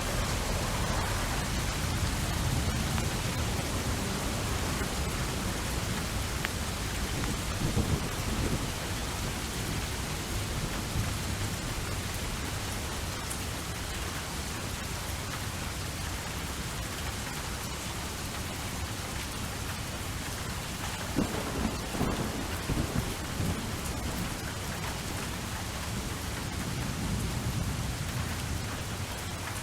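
Steady rain with low thunder rumbling under it. Louder crackling spells of thunder come about eight seconds in and again around twenty-one to twenty-three seconds.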